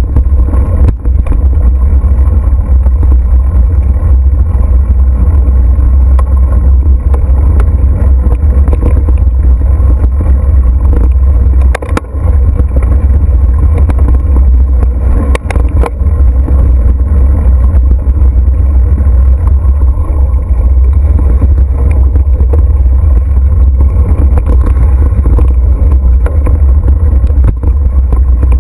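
Wind buffeting an action camera's microphone on a mountain bike moving fast downhill on a dirt trail, a loud steady low rumble, with a few short knocks from the bike over bumps.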